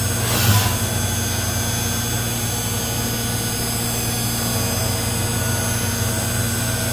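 CNC machining center running steadily: a constant whine made of many fixed high tones over a low hum. A short rush of noise comes about half a second in.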